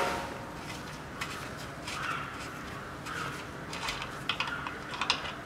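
Light metallic clicks and clinks as a steel drain pan is handled under the rear differential and the drain plug is worked loose by hand, with a cluster of clicks about four to five seconds in.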